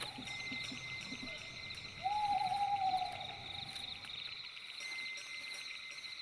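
One long, slightly falling hoot about two seconds in, over a steady, pulsing chorus of night insects.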